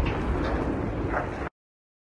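Steady low outdoor rumble on a phone microphone, cutting off suddenly about one and a half seconds in.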